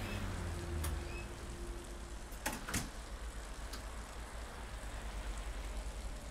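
Low steady rumble of background ambience with a few sharp clicks, two close together about two and a half seconds in.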